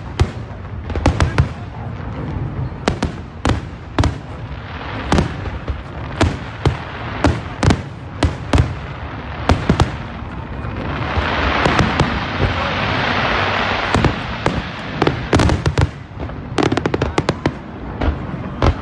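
Aerial fireworks display: a rapid, irregular series of sharp shell bursts, with a dense rushing hiss that swells for a few seconds about halfway through.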